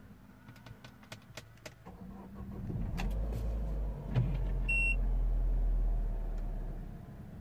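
Peugeot 3008's 1.6 turbo petrol engine being started: it catches a little under three seconds in and runs with a low steady hum that eases off near the end. A short dashboard warning chime sounds once, a little under two seconds after it starts.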